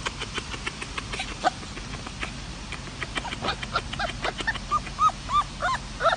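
Light clicking in the first half, then a puppy giving a quick series of short, high yips that rise and fall in pitch, about three a second, starting past halfway.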